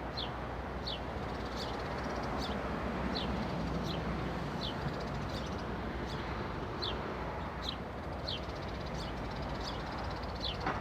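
Daytime residential outdoor ambience: a small songbird repeating a short, high, falling chirp about once a second over a steady hum of distant traffic.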